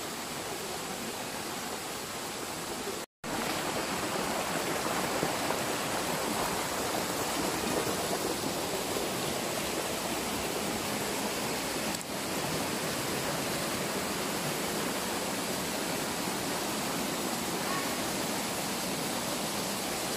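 Small waterfall in a rocky jungle stream, white water pouring steadily over rocks into a pool. The sound cuts out completely for a moment about three seconds in.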